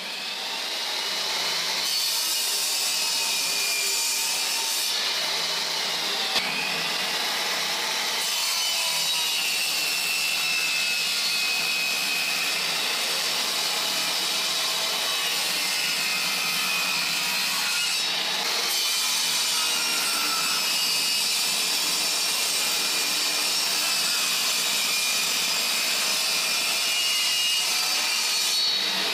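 Table saw running and ripping boards, a steady high whine with a rasp of blade through wood, its pitch sagging and recovering as the blade takes the cut.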